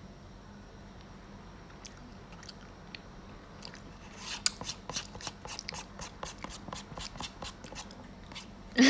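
Crunchy chewing close to the microphone: quiet room tone at first, then from about halfway through a run of small, irregular crunches and clicks, several a second. A short burst of voice comes right at the end.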